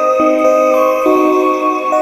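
Soft instrumental background music with slowly changing held chords.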